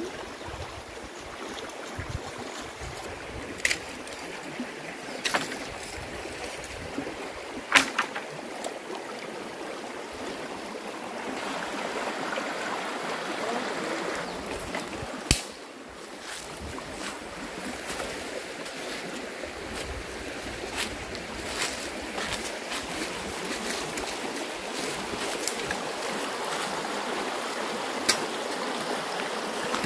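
River water flowing steadily, with a few sharp knocks scattered through it.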